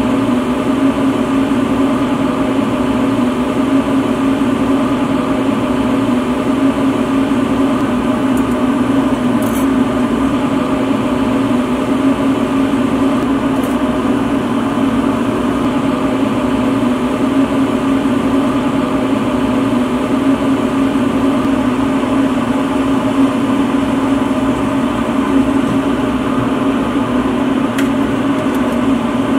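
Lampworking bench torch burning with a steady, unchanging drone and hiss.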